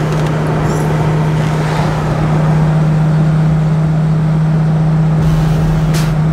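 Lamborghini Gallardo's V10 engine running at a steady pitch while cruising, heard from inside the cabin, with road and tyre noise.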